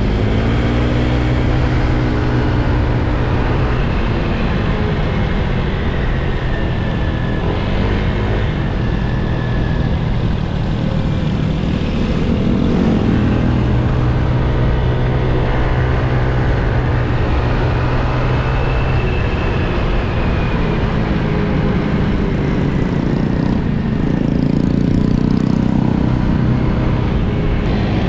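Scooter engine running under way, its pitch rising and falling a few times as the throttle changes, over a steady rush of wind and road noise.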